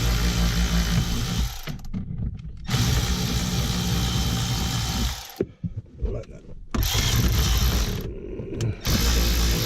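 Power tool with an 8 mm socket running in about four short bursts with brief pauses between them, spinning out the knee bolster bolts.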